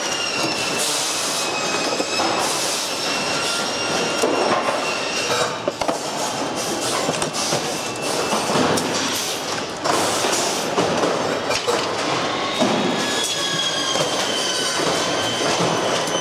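Plastic and metal parts of a pachinko machine's frame clattering, scraping and knocking as they are pulled apart and handled, with thin high squeals from parts rubbing against each other over a steady workshop noise.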